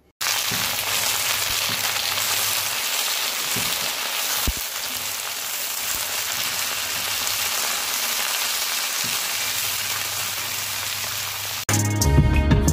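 Chopped vegetables sizzling steadily as they fry in a kadai, with one knock about four and a half seconds in.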